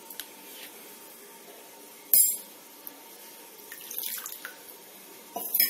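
A hand stirring spiced buttermilk in a plastic bowl, the liquid sloshing faintly, with a short sharp sound about two seconds in and a few lighter knocks near the end.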